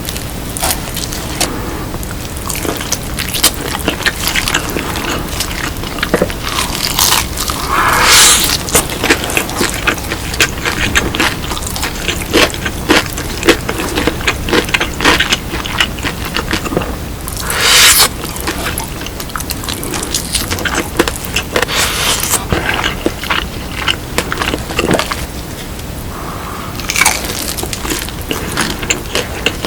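Fried chicken being bitten and chewed close to the microphone: a dense run of crisp crunches and chewing clicks, with two louder crunching bursts about 8 and 18 seconds in.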